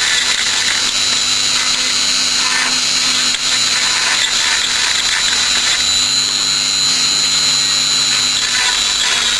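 Small hand-held rotary tool running with a steady high whine as it cleans the damaged spot on a truck radiator, preparing the metal for soldering.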